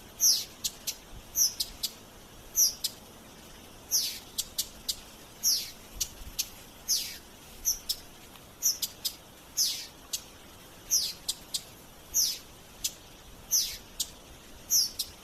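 Spotted flycatcher calling: thin, high notes that slide downward, repeated about every second, mixed with short sharp ticks.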